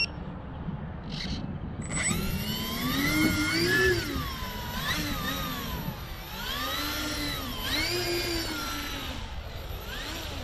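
Twin electric brushless motors of a Sonicmodell Binary RC plane spinning up from about two seconds in, their whine rising and falling in pitch several times as the throttle is worked up and down, over a steady thin high whine.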